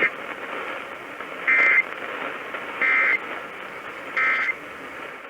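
Emergency Alert System end-of-message data bursts over radio: three short, identical digital screeches about 1.4 s apart, over a steady hiss of radio static.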